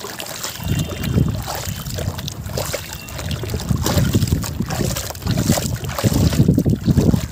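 Hands squeezing and kneading soft, crumbled cement in a bucket of water: wet squelching and sloshing in irregular bursts, louder toward the end.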